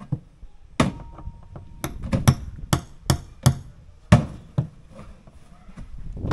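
Hand tools, a machete and a hammer, knocking on plastic jerry cans in a series of about ten sharp, irregular strikes, roughly two a second.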